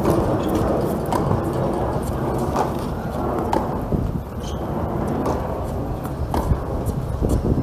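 Wind noise on an outdoor microphone, with several sharp tennis-ball strikes off rackets at irregular intervals during a rally.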